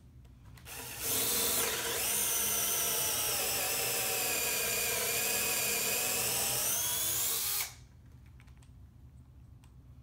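Bosch cordless drill boring a 9/32-inch hole into a wooden post. The motor whine starts about a second in, dips slightly in pitch midway, and cuts off sharply after about seven seconds.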